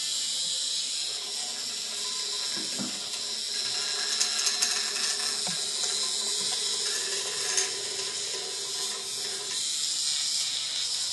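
Hexbug Nano toy's vibration motor buzzing steadily as it skitters over tile, a high hissing buzz with a few faint knocks.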